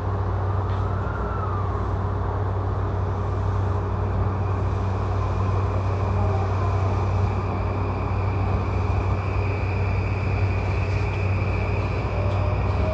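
Steady in-cabin running noise of an E235-series electric commuter train: a low hum and rumble, with faint whining tones that rise and fall, one rising near the end.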